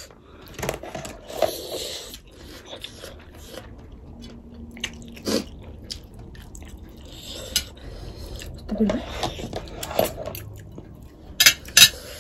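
Eating sounds from a plate of Korean spicy ramen noodles: chewing and slurping, with forks clicking and scraping on plates and two sharp clinks near the end.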